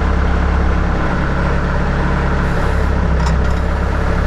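Diesel engine of a Bobcat skid steer loader running steadily at low throttle, its note shifting briefly about two and a half seconds in.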